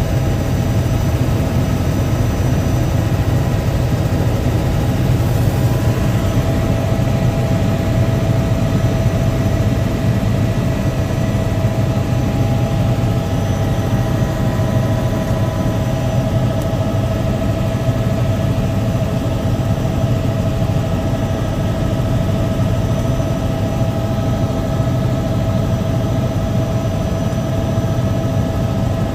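Helicopter cabin noise in flight: a steady low engine and rotor drone with a constant whine over it, unchanging throughout.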